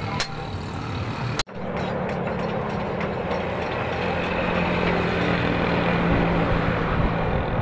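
Two sharp metal clinks of tongs on steel, then the steady roar of a coal forge with its blower running, with a low hum under the rush of air and fire while a steel blank heats in the coals.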